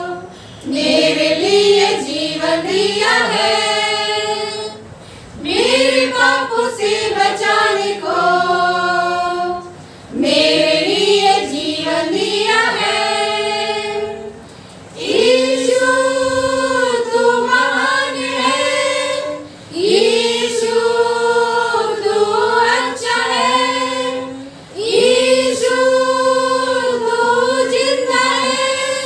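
A small group of women singing a hymn together unaccompanied, in phrases of about five seconds with short breaks for breath between them.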